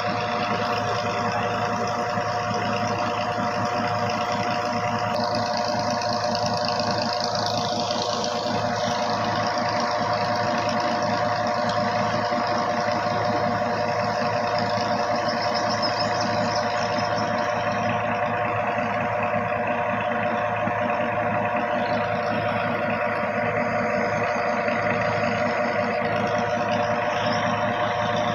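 An engine running steadily at idle, with a fast, even firing pulse.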